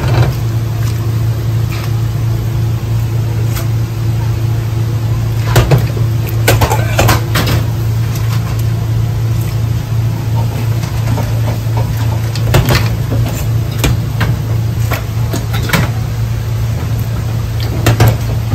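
Noodles being tossed by hand in a large stainless-steel mixing bowl and lifted into smaller steel bowls, with several sharp clinks and knocks of steel bowls. A steady low machine hum runs underneath.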